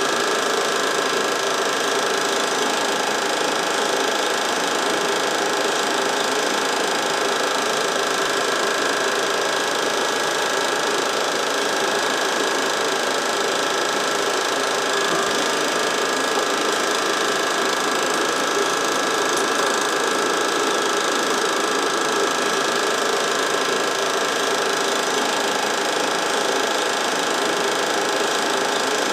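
Home-movie film projector running steadily, an even mechanical whir that does not change.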